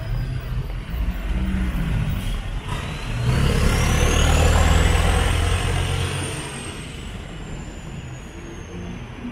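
Street traffic with a heavy vehicle passing close by: a low engine rumble swells about three seconds in, peaks, then fades away, with a thin high whine rising and then slowly falling as it goes.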